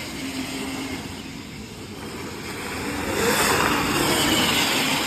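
Electric Formula Student race car driving past. Its sound swells about three seconds in and eases off near the end.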